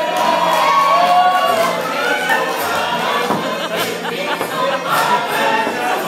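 Loud music with a crowd of voices singing along over it.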